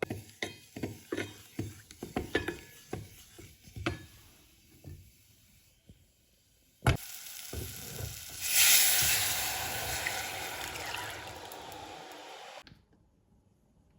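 A spoon stirring and clinking against a pot, a sharp knock, then a loud sizzle that fades slowly over about four seconds and stops abruptly.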